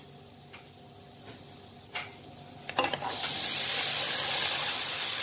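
A few light clicks of a steel slotted spatula in the kadai, then about three seconds in a sudden loud sizzle that keeps going as boiled black chickpeas are tipped into the hot besan masala frying in ghee.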